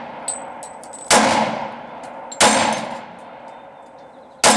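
Glock 27 subcompact pistol in .40 S&W firing three shots, the first two about a second and a half apart and the last near the end, each with a long echoing tail. Between them come faint high metallic pings of bullets striking steel targets downrange.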